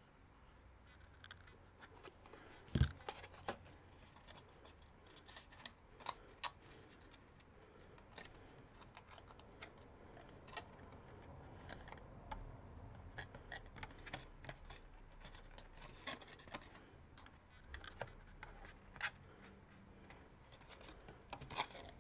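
Quiet hand-handling of thin cardstock on a wooden desk: scattered light taps, clicks and rustles as the card pieces are pressed and folded, with one louder knock about three seconds in.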